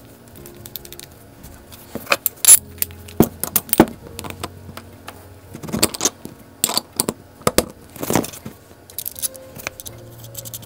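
Metal parts of a bicycle coaster-brake rear hub clinking and clicking as they are handled and fitted onto the axle, in two clusters of sharp clinks a couple of seconds apart.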